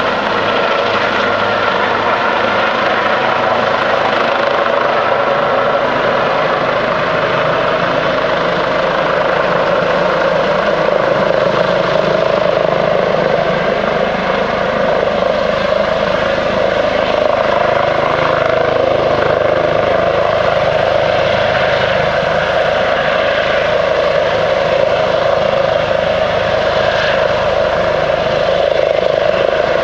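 Airbus Helicopters H145M hovering low, its twin turboshaft engines, main rotor and Fenestron shrouded tail rotor running in a loud, steady drone that grows a little louder about a third of the way in.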